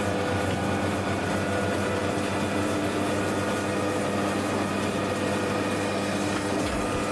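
Machinery running steadily: a constant hum with several steady tones over a continuous whirring noise, like a motor-driven recycling machine at a constant speed.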